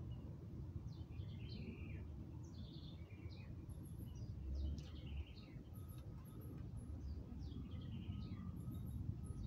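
Small birds chirping: many short calls, with a series of thin, very high chirps, over a low steady background rumble.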